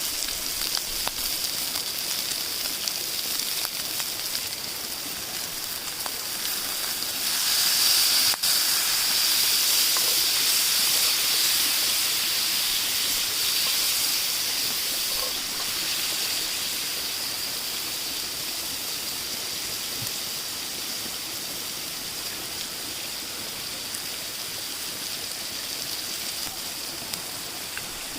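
Pan of pancit canton hissing and sizzling with steam, swelling loud about seven seconds in and easing back to a steady hiss.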